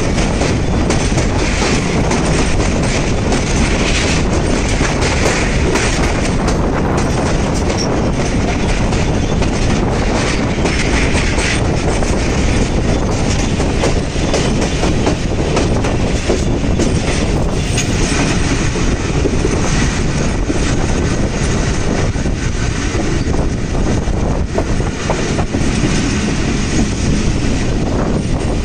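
Pakistan Railways passenger train running along the line, heard from outside an open coach: a steady loud rumble of the wheels with clickety-clack over the rail joints.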